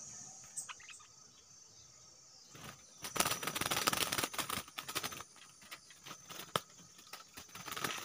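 A wild bird flapping its wings and scrabbling at a bamboo trap cage, a fast flurry of rustles and taps that starts about three seconds in, with one sharper tap near the end.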